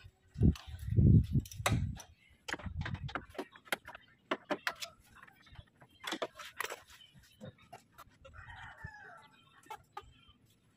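Sharp clicks and knocks of hands and tools working on the van's radiator and its drain plug, with a few heavy low thumps in the first two seconds. A chicken calls briefly in the background near the end.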